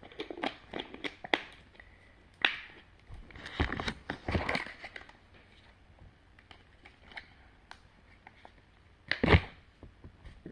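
Scattered close-up crinkles, clicks and short crunching bursts from handling and eating gummy sushi candy, loudest in a cluster about halfway through and in one burst near the end.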